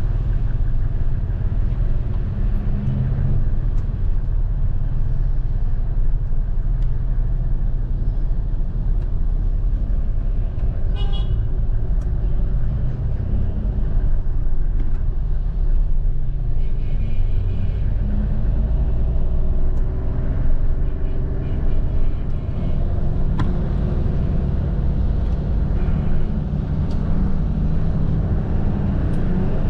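Steady low rumble of a moving tour coach driving through city traffic, with car horns honking outside. One horn blast stands out clearly about 11 seconds in, and fainter honks follow in the second half.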